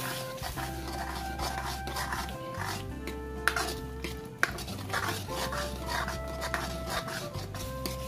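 Steel spoon stirring and scraping wet masala gravy in a metal kadai, with repeated clinks of the spoon against the pan, the sharpest about three and a half and four and a half seconds in. Background music with sustained notes plays underneath.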